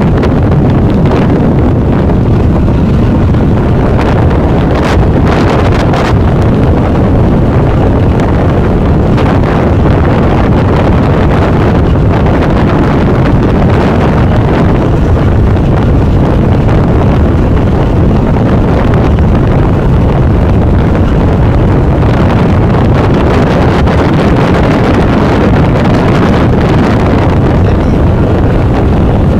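Wind buffeting the microphone aboard a moving ferry: a loud, steady rumble, with the ferry's engine and water beneath it.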